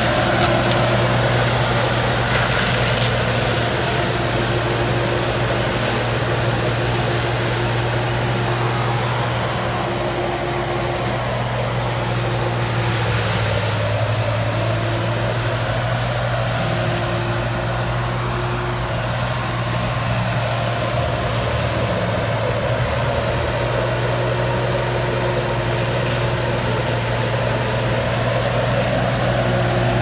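Valtra tractor engine running steadily under load, driving a rear-mounted forestry mulcher as it clears brush: a continuous low machine drone whose pitch dips briefly about halfway through.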